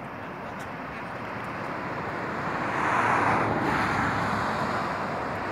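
A vehicle passing on the road: tyre and engine noise that builds to a peak about three seconds in, then eases off a little.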